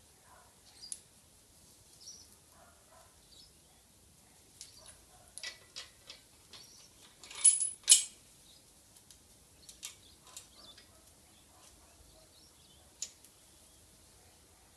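Small metal parts clicking and clinking as a thrust bearing, washers and a nut are fitted by hand onto the threaded shaft of a steel stand upright, with a close pair of sharp clicks, the loudest, about eight seconds in.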